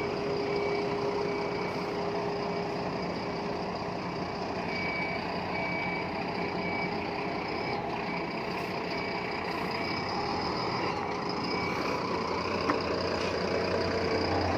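A bus running with steady engine and road noise, while a high electronic beep sounds in short dashes on and off.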